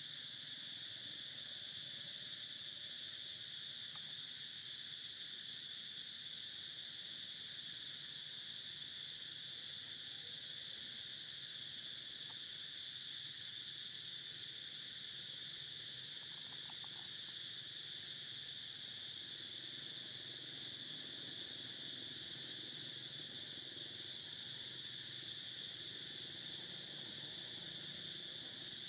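Steady insect chorus: a constant high-pitched buzz that holds at one level without a break.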